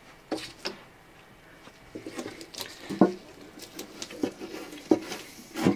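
Light, irregular handling noises: scattered small taps, clicks and rustles, with the sharpest tap about three seconds in and another near the end.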